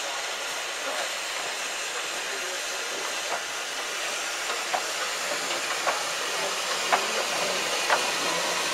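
Beyer-Garratt narrow-gauge steam locomotive standing with steam hissing steadily. Sharp ticks come about once a second from partway through.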